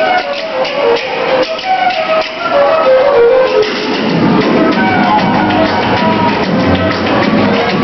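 Music with a melody and dense percussion. The melody steps downward over the first few seconds, and about four seconds in the music turns fuller and lower.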